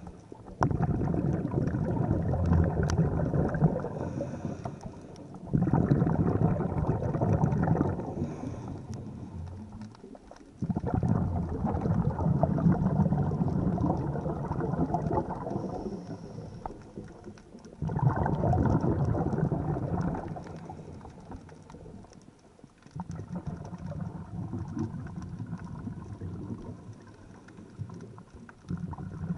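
Scuba diver's exhaled bubbles rumbling out of the regulator underwater, five breaths, each burst starting suddenly and fading over a few seconds, with quieter gaps between.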